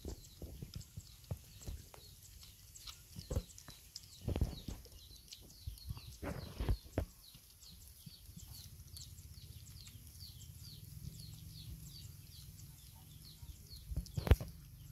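Puppies eating from a metal bowl: wet lapping and chewing with small clicks against the bowl, and a few louder knocks. A high chirp repeats about three times a second in the background.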